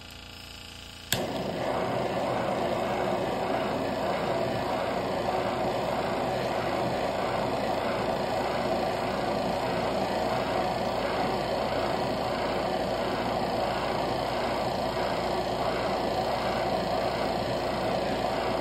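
Butane blowtorch lit with a click about a second in, then its flame hissing steadily as it heats a thermoacoustic Stirling engine, whose low hum runs underneath.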